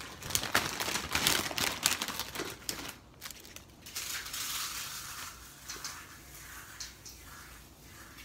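Salad of shredded lettuce and crushed Doritos being tossed by hand and with a metal spoon in a stainless steel bowl: crunching, rustling and clicking, busiest in the first three seconds, then softer.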